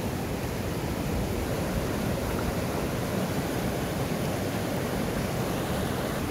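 Steady rush of a monsoon-swollen mountain river running in whitewater rapids over rocks.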